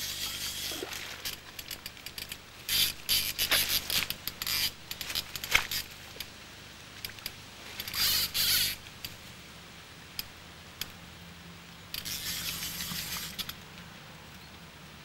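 Fly reel's click-and-pawl check buzzing in several short bursts as a hooked big brown trout pulls line off the reel, with scattered light clicks in between.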